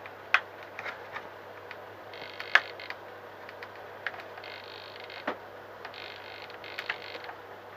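A small screwdriver driving tiny screws into plastic servo horns: three creaking stretches of about a second each as the screws bite into the plastic, with scattered sharp clicks from the tool and parts being handled.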